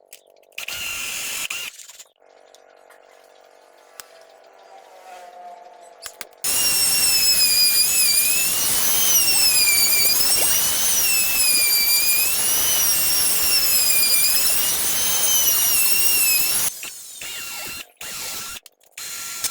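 A power tool's motor whining at high speed as it works wood, its pitch dipping and recovering as the load changes, for about ten seconds after a quieter start. Short choppy bits of sound follow.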